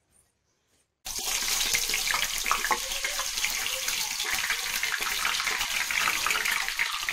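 Raw potato slices frying in hot oil in a pan, a dense, steady sizzle that starts suddenly about a second in as the slices drop into the oil.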